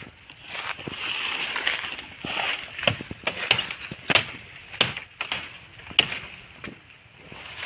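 Dry bamboo leaves and twigs crunching and crackling as someone moves through a bamboo thicket, with a run of sharp, irregular cracks and snaps.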